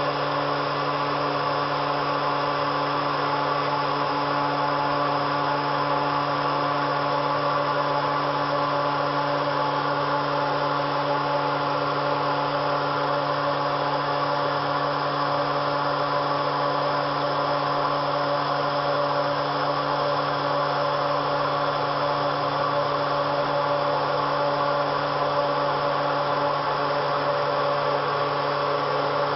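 Dual Colombo 12 HP router spindles on a CNC router running at constant speed: a steady motor hum and whine that holds the same pitch throughout.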